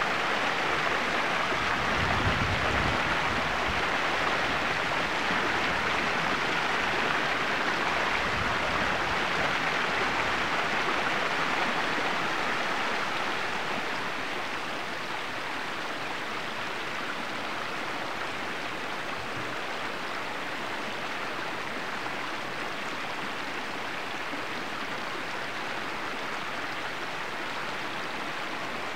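Shallow stream running and trickling over small rocks and riffles, a steady rush of water. About halfway through it becomes a little quieter and stays even.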